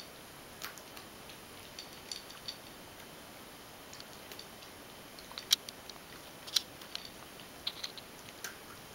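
Ragdoll cat eating from a stainless steel bowl: sparse, irregular clicks and small crunches as it takes food against the metal. The loudest two come about a second apart, midway.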